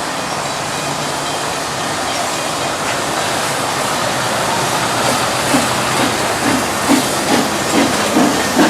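Steam locomotive with a steady hiss of steam. About halfway through, a regular beat of roughly two strokes a second sets in and grows louder.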